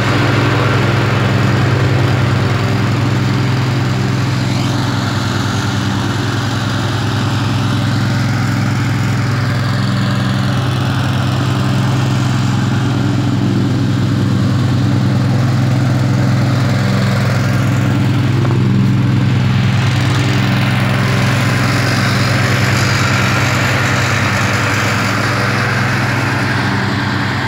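Husqvarna ride-on mower's engine running at a steady speed, a low even hum that holds throughout.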